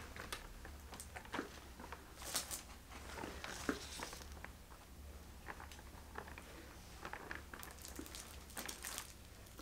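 Faint scattered clicks and short rustles of a baby stroller's frame and handlebar being handled, over a low steady hum.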